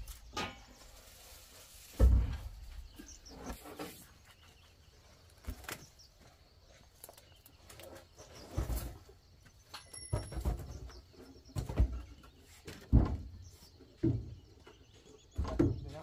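Scattered knocks and thumps of wooden poles and timber being handled and set against a barn's roof frame, with birds chirping now and then in the background.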